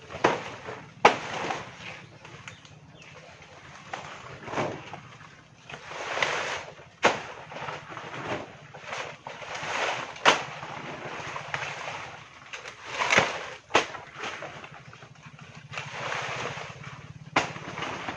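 Banana leaves and stalks rustling in swells as they are handled and pulled about. Irregular sharp cracks or chops fall between the swells, several in all.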